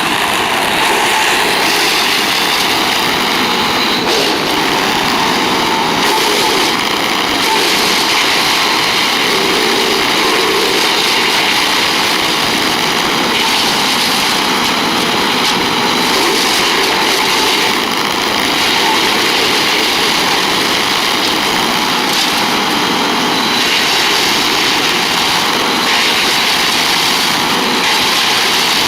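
Vermeer BC700XL wood chipper running steadily, its 25-horsepower engine held at a constant speed.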